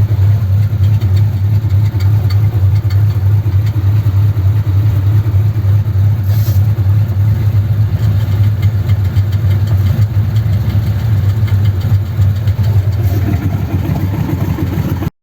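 1932 sedan hot rod's engine idling steadily, with a loud, even low drone.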